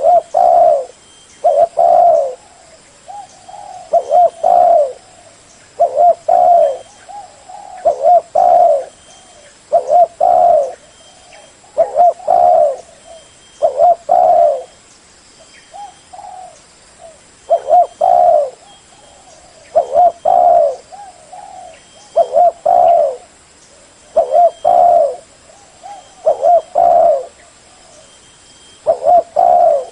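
Spotted dove cooing over and over, a loud phrase of a few coos about every two seconds with softer notes in between.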